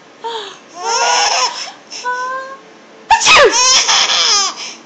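Baby laughing in several bursts, the loudest and longest one starting suddenly about three seconds in.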